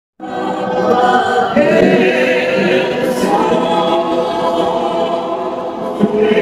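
A choir singing a cappella, many voices together, cutting in suddenly a moment after the start and holding steadily.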